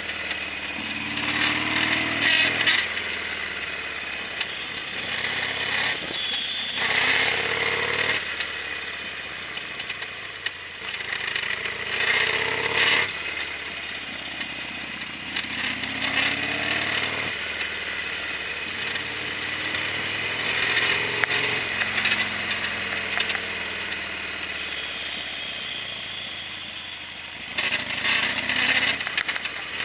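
Harley-Davidson Sportster XL1200's air-cooled V-twin engine running on the move, its revs climbing and dropping several times, with louder surges every few seconds.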